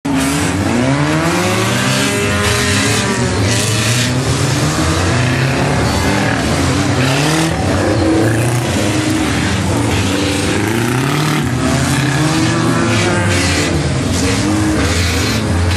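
Engines of several demolition derby cars revving and running around a dirt arena, their pitches overlapping and rising and falling again and again as the cars accelerate and slow.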